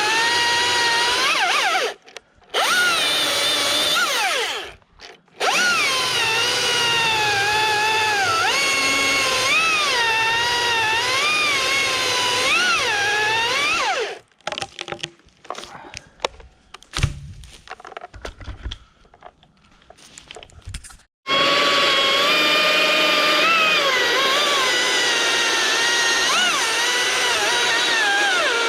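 Husqvarna T540iXP battery chainsaw's electric motor whining at full speed, its pitch dipping and recovering as the chain bites into wood. It stops briefly twice, about two and five seconds in. In the middle it goes quiet for about seven seconds, leaving only scattered knocks, then starts again and runs steadily.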